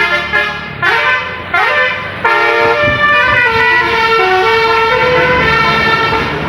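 Indonesian bus telolet horn (Basuri-type multi-tone horn) playing a tune: two quick rising swoops about a second in, then a run of held notes stepping up and down in pitch.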